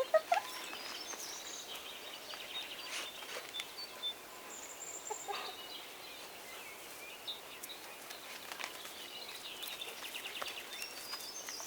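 Faint bird calls, short rapid chirping phrases recurring throughout, with a few light clicks.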